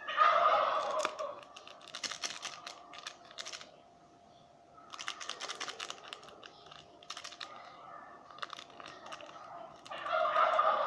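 Crisp food being crunched and chewed, heard as clusters of sharp clicks. Two louder pitched bursts come at the start and near the end, over a faint steady hum.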